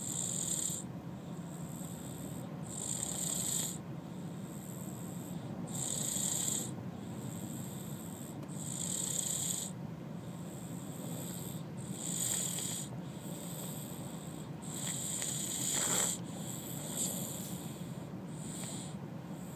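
A sick toddler snoring in his sleep, a hissy snoring breath about every three seconds.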